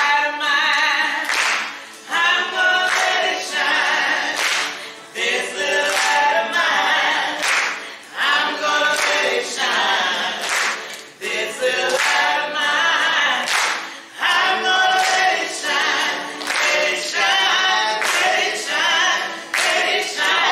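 A group of voices singing a cappella, with sharp hand claps through the song.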